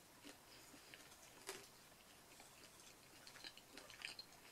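Faint chewing of pizza with the mouth closed: a few soft, wet mouth clicks over near silence, a small cluster of them near the end.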